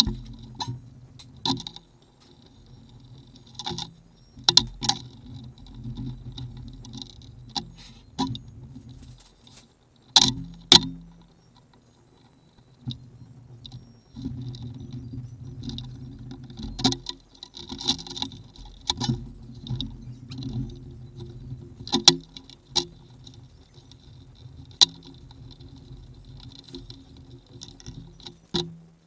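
Irregular sharp clicks and light metallic rattling, like small metal parts and tools being handled, over a low hum that comes and goes.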